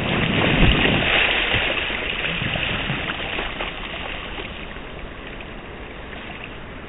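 Sea water rushing and sloshing as a small wave passes, loudest about a second in and fading away steadily.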